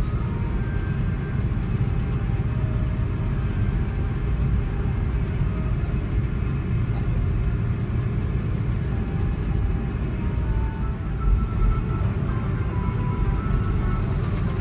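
Steady low rumble in the cabin of an Airbus A330-300 taxiing after landing, with engine and rolling noise heard through the fuselage.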